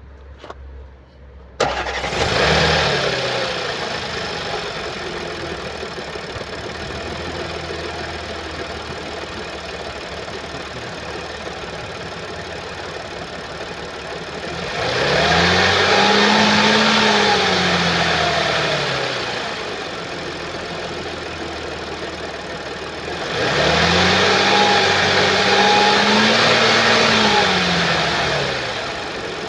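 2013 Audi S4 B8's 3.0 TFSI supercharged V6 (CGWC) starting about a second and a half in, idling, then revved up and let back down twice, each rev held for a few seconds. It makes the unusual noise of a jumped timing chain, as the seller diagnoses it.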